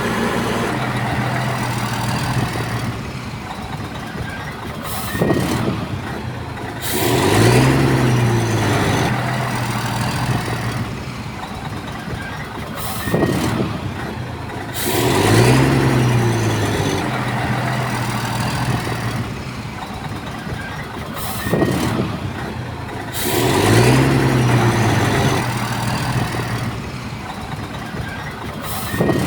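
Bulldozer's heavy diesel engine working in a repeating cycle about every eight seconds: a knock, then the engine revs up under load, holds, and eases back, three times over.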